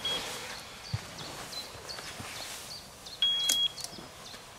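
Electronic carp bite alarm beeping as a small fish tugs the line: a short beep at the start and a longer, louder beep a little past three seconds in, with a sharp click at the same moment.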